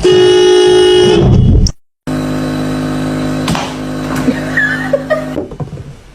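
Two long, steady horn blasts separated by an abrupt cut: the first is higher-pitched and lasts under two seconds, and the second is lower and longer, with a few clicks over it.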